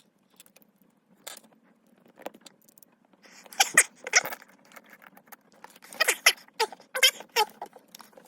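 Lego minifigure packaging and small plastic parts being handled: short bursts of plastic crinkling and light clicks, sparse at first and busier from about three seconds in.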